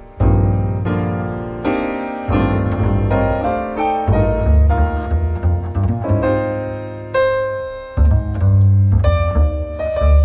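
Live jazz trio music: acoustic piano playing chords and lines over a double bass, the piano struck every half second to a second or so over deep sustained bass notes.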